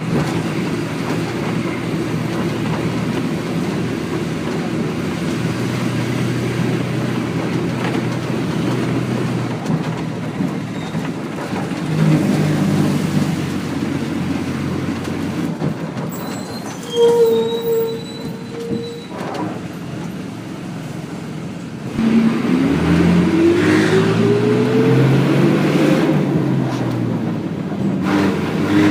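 Bus engine running and road rumble, heard while travelling. About two-thirds of the way through, a steady high tone sounds for about two seconds. Shortly after, the engine grows louder and its pitch rises for several seconds as the bus accelerates.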